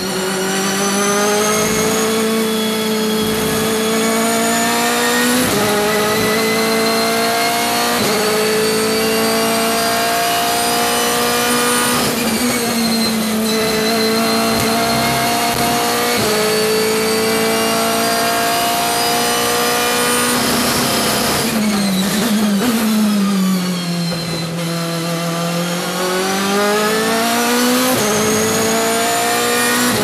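BMW M3 DTM race car's 4.0-litre V8 heard from the cockpit at racing speed, pulling hard through the gears with a quick upshift every few seconds. Past the middle the revs fall away as it brakes and downshifts for a corner, then climb again with another upshift near the end.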